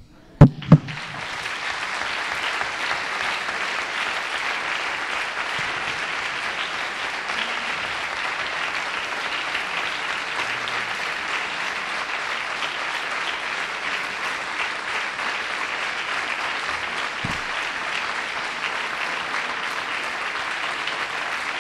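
Lecture-hall audience applauding steadily and at length. The applause swells in just after two sharp knocks, which are the loudest sounds, about half a second in.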